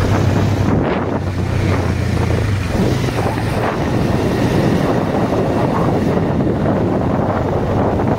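Wind buffeting the microphone of a camera on a moving motorcycle, with a low engine hum under it for the first couple of seconds.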